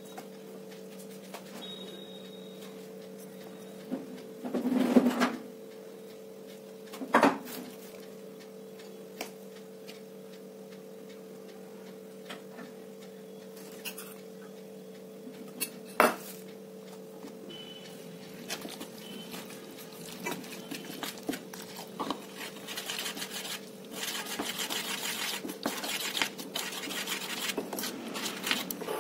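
A few sharp knocks and clinks of utensils against a steel mixing bowl as ingredients go in, the loudest about five seconds in. Near the end a spoon scrapes steadily round the bowl, stirring thick batter. A steady low hum runs underneath.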